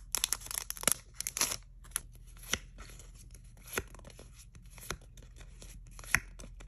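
Scissors snipping open a foil trading-card booster pack, with the wrapper crinkling for the first second and a half. After that come sharp single clicks, about one every second and a quarter, as the cards are slid off one another in the hand.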